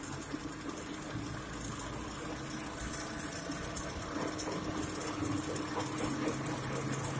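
Paper roll-slitting machine for cash-register rolls running steadily: a continuous mechanical hum and rush with faint light ticks, a low steady tone coming in during the second half.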